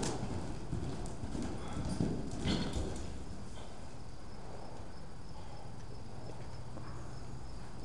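Hoofbeats of a paint horse cantering loose on the soft dirt footing of an indoor arena, dull thuds that die away after about three seconds as the horse slows to a walk.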